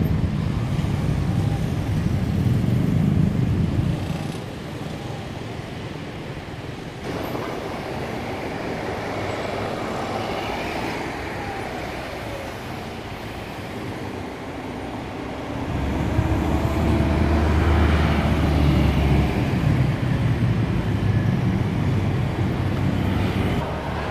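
City road traffic, cars and engines passing on a street. It is louder in the first few seconds and again about two-thirds through, when a vehicle engine drones steadily for a few seconds.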